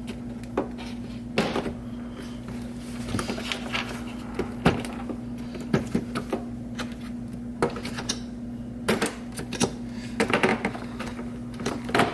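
Scattered clicks and light knocks of a screwdriver and plastic parts as the stock front grille is unscrewed and worked loose from the bumper, over a steady low hum.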